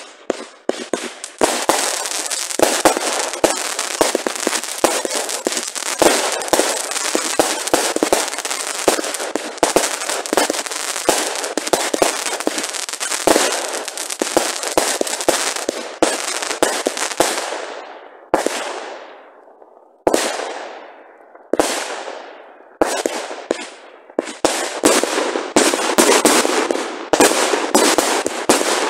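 Consumer firework batteries firing in rapid succession: a dense run of shots and crackling. About two-thirds of the way through it thins to a few single bursts, each trailing off over a second or so, before rapid firing starts again.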